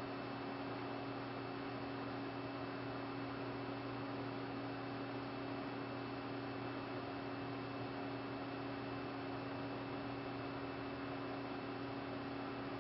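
A steady electrical hum over an even hiss, made of several fixed tones that never change in pitch or level.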